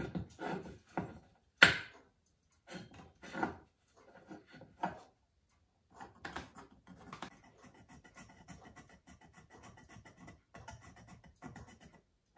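A small steel hand tool scraping and clicking against a metal pocket-watch case ring, in short irregular strokes with one sharp click about a second and a half in. From about six seconds on, a steadier run of fine scraping as the case is worked on the wooden bench.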